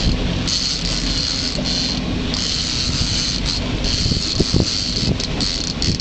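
Steady rushing noise of a fishing boat under way: the engine running, with wind and waves washing past the hull.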